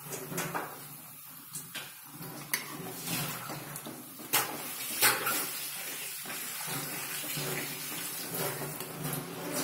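Dough frying in hot oil in a kadhai, a steady sizzle. Several sharp clinks of a steel ladle against the pan break through it, the loudest about five seconds in.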